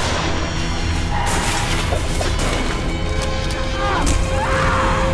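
Loud, dramatic trailer music with crashes and heavy impacts cutting through it, and voices mixed in.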